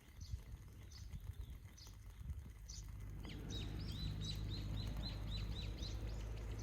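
A small bird calling outdoors: scattered single chirps, then from about three and a half seconds in a quick even series of short high falling notes, roughly three a second, over a low steady rumble.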